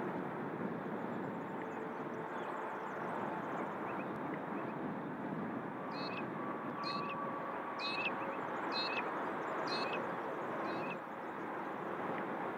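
Strong wind buffeting the microphone, with a distant electric suburban passenger train approaching on the line. A bird gives six short calls, about one a second, from about six seconds in.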